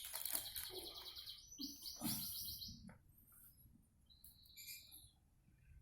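A small songbird chirping: two quick high trills in the first three seconds, then a few softer short calls near the end.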